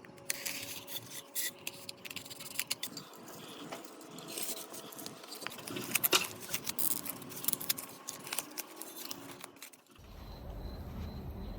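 Small metal parts clinking and scraping as they are handled, with many sharp clicks. About ten seconds in, this cuts to a steady low machine hum with a faint hiss.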